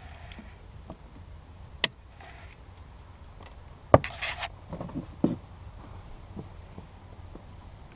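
Side cutters and zip ties worked on bilge pump wiring: a few sharp clicks spread over several seconds, with a short rasp just after the second click, about four seconds in.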